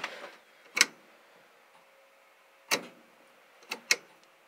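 Sharp, irregularly spaced clicks as a car's turn-signal indicator stalk is worked: one about a second in, another near three seconds in, and two in quick succession near the end.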